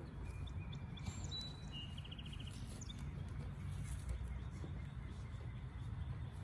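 Songbirds chirping: a few short calls and one quick trill of rapid repeated notes in the first half, over a steady low rumble.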